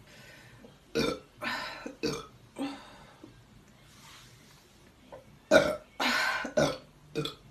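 A person burping over and over: a run of four burps about a second in, then a louder run of four burps past the middle.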